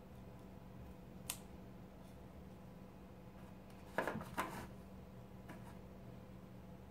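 Quiet room with a faint steady hum. A single click about a second in, then a brief crackle and rustle of paper at about four seconds as comic-book paper strips are folded and pressed around a picture frame.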